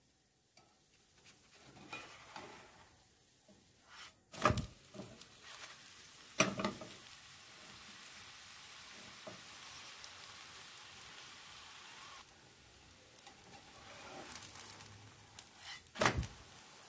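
Crepe sizzling in a non-stick frying pan, a steady hiss that drops a little about twelve seconds in. Three sharp knocks come about four and a half, six and a half and sixteen seconds in, with a few lighter clicks between.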